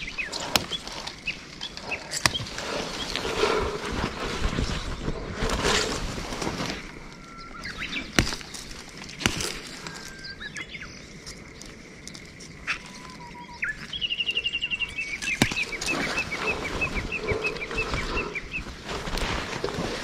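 Rustling of brush and undergrowth with a few sharp snaps, as fern shoots are reached for and picked, while small songbirds sing. About fourteen seconds in, a fast high trill is followed by a run of repeated chirps.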